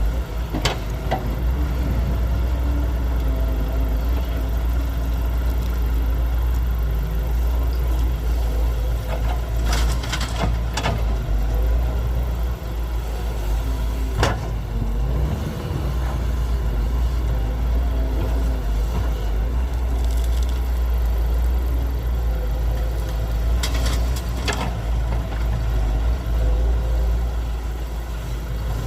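Heavy diesel engine of earthmoving machinery running steadily, its pitch wavering as the load changes. Several sharp metallic knocks are heard, two of them in pairs.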